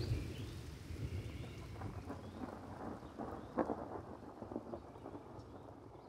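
Low rumble of thunder with rain pattering in scattered drops, the whole sound fading out steadily.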